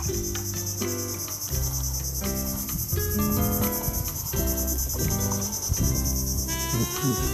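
A steady, high-pitched chorus of insects, thick and rapidly pulsing, over background music of held notes that change in steps.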